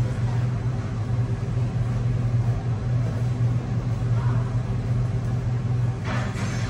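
Steady low machine hum of commercial kitchen equipment, with a brief noise about six seconds in.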